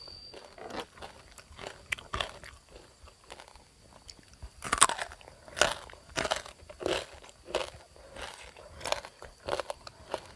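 Crisp crunching and chewing of fried crispy pork belly skin being bitten and eaten. Quieter small crunches at first, then from about halfway a run of sharp crunches, about one every half second or so, the sharpest at the start of the run.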